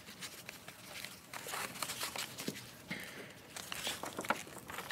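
Faint rustling and scattered light clicks, as of paper being handled at the lectern.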